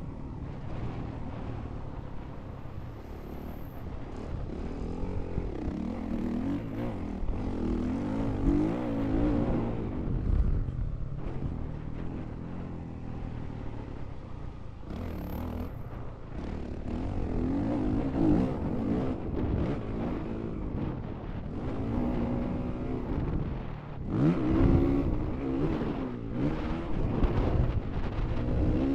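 Honda CRF450R's single-cylinder four-stroke engine, heard from on the bike, revving up and falling back again and again as the rider opens and closes the throttle around the track, with several louder swells of revs.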